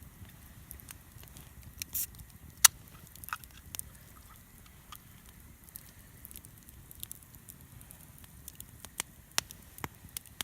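Wood campfire crackling with irregular pops and snaps, the loudest a single sharp snap about two and a half seconds in.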